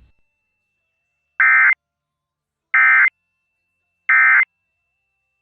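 Emergency Alert System end-of-message signal: three short bursts of digital data tone (the SAME "NNNN" code), a little over a second apart, marking the end of the test alert.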